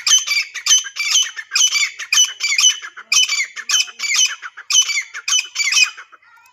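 Grey francolin calling: a rapid run of loud, repeated calls, about three a second, that stops near the end.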